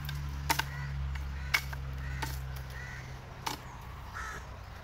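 Machete striking a bamboo pole as it is split lengthwise: a few sharp knocks. Short, repeated bird calls come between the strikes.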